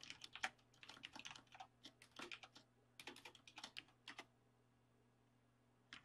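Faint typing on a computer keyboard, keystrokes in quick runs that stop about four seconds in.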